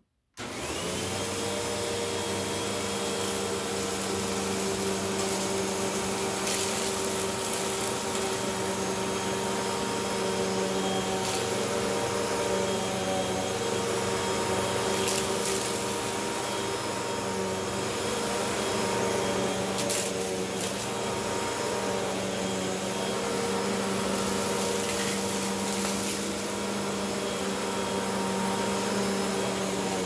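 Hoover WindTunnel T-Series Purely Clean upright vacuum switched on, its motor spinning up within the first second and then running steadily with a constant hum. A few faint brief ticks come and go.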